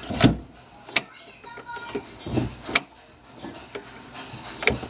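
A handful of sharp knocks and clicks, spaced a second or more apart, with a few faint short squeaky tones in the middle.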